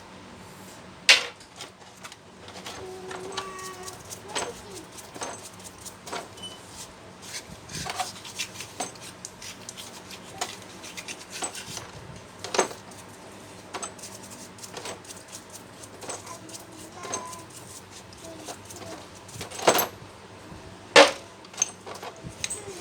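Metal parts and tools clinking and knocking as they are handled, in irregular single strikes. There are sharper knocks about a second in and twice near the end.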